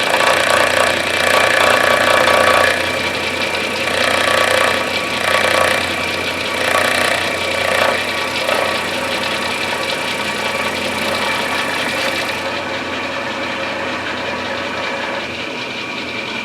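Milling machine cutting the inletting in an English walnut gunstock: a steady motor hum, with the noisy cut of the end mill in the wood coming in swells for about the first eight seconds, then easing off to the quieter running of the spindle.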